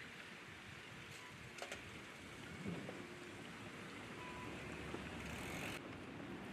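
Faint, steady outdoor background hiss of a riverside, with a couple of small clicks about a second and a half in.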